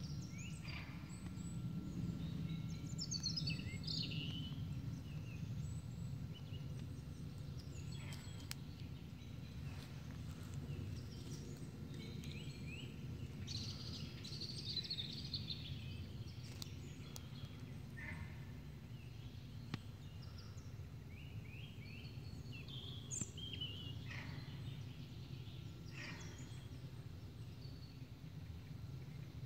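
Songbirds calling and singing in short phrases over the steady low murmur of a small river. The calls come in clusters near the start, around the middle and near the end, with a few faint clicks between them.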